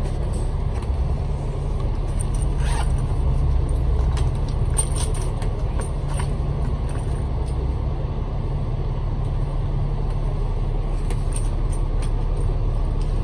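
Bus running along the road, heard from inside the cabin: a steady low drone of engine and tyres, with occasional light clicks and rattles.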